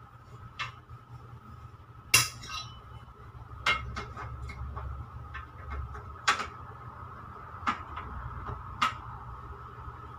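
Scattered knocks and clinks of packaged stock being handled and set on metal shop shelving, the loudest about two seconds in with a short ring, over a steady background hum.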